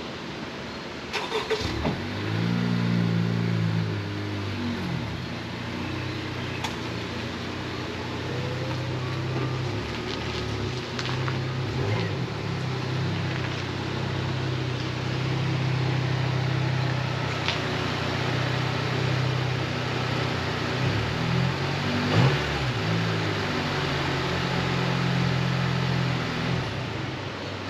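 A car engine starts about two seconds in, after a few clicks, then runs steadily, its pitch and level shifting a few times.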